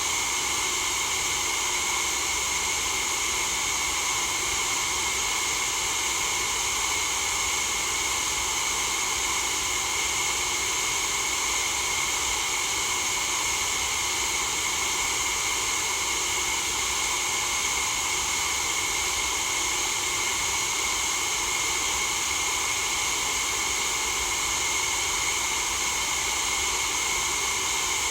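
Steady white noise: an unbroken, even hiss with no changes, loudest in the upper range.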